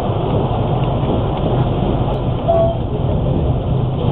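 Steady rumble and rattle of a passenger train running along the track, heard from inside the carriage. A short faint tone sounds about two and a half seconds in.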